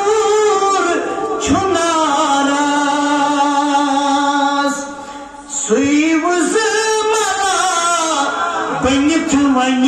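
A man's voice singing a devotional Urdu kalam, drawing out long held notes that glide between pitches. He breaks off briefly about halfway through, then starts a new phrase.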